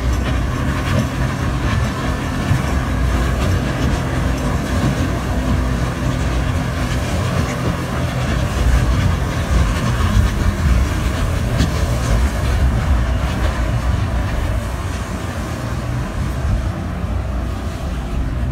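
Boat engine running steadily, a low rumble with water and air noise over it.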